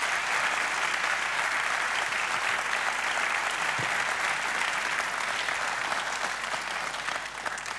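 Studio audience applauding steadily, dying down slightly near the end.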